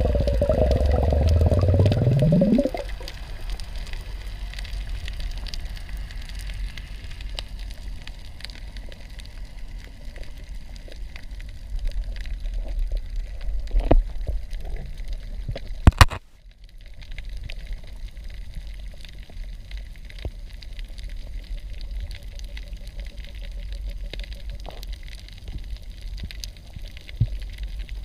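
Underwater sound on a spearfishing dive: a steady low water rumble with scattered small clicks. It opens with a loud rising hum that stops after about two and a half seconds, and a single sharp snap comes about sixteen seconds in.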